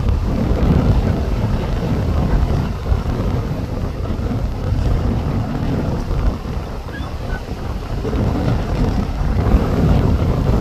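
Strong wind buffeting the microphone, a loud low rumbling noise that rises and falls in gusts.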